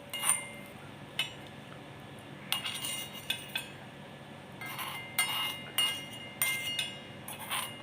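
A small spoon clinking and scraping against a miniature kadai and plate as fried thuthuvalai leaves are moved from the pan to the plate. It is a series of irregular light clinks, some ringing briefly, and they come more often in the second half.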